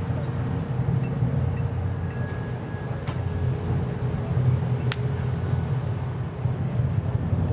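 Outdoor field ambience: a steady low rumble with a faint steady tone above it, and two sharp clicks about two seconds apart near the middle.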